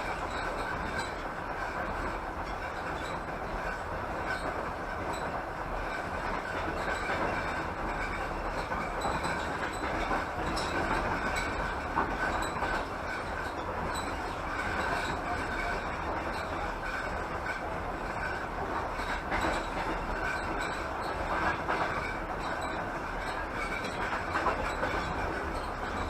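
Passenger train running along the line, heard from on board: a steady rumble of wheels on rail with occasional faint clicks.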